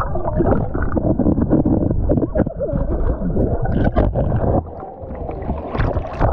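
Muffled underwater rumble and bubbling of seawater around a submerged camera, with many small clicks and knocks from movement. About four and a half seconds in it drops quieter, and near the end brighter splashing comes in as the camera nears the surface.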